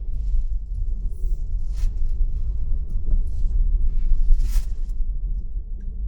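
Car driving: steady low road and engine rumble.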